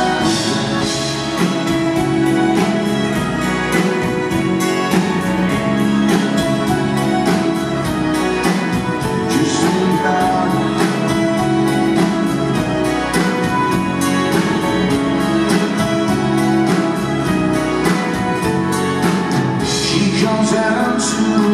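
Live band playing an instrumental passage: acoustic and electric guitars, bass, keyboards and drums keeping a steady beat, with a bowed violin line.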